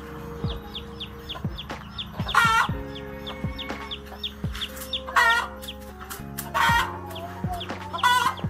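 A hen calling loudly four times in short, harsh squawks, over background music.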